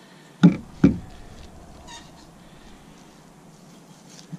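Two heavy cleaver chops about half a second apart, the blade cutting through a chicken's leg joint into a wooden cutting board, then a lighter knock near the end.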